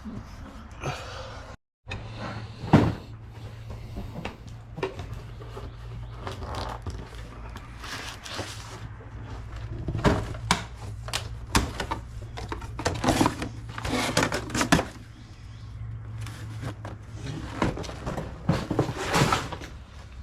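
Irregular metal clanks, knocks and rattles of parts and panels being handled during filter service on a Cat 318B excavator, over a steady low hum. The sharpest knock comes about three seconds in, and there are clusters of clatter in the second half.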